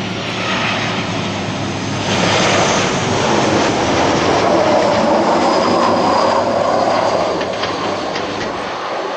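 Boeing 737-600 airliner's CFM56-7B turbofan engines passing low and close on final approach to landing. The jet noise swells about two seconds in, stays loud through the middle, and eases off near the end.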